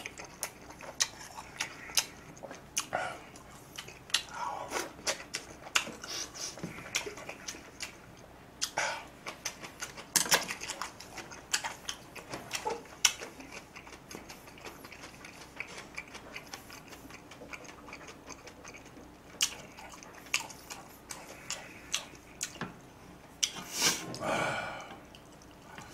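Close-miked eating sounds: chewing and lip smacking with many short, sharp clicks, and now and then chopsticks or a spoon tapping a dish or bowl.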